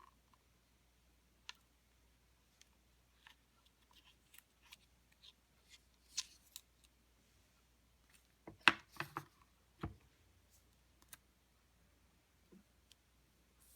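Hands handling the packaging and parts of an Apple Watch Sport during unboxing: scattered small clicks, taps and rustles. A quick cluster of louder clicks comes a little under nine seconds in, and one more sharp click about a second later.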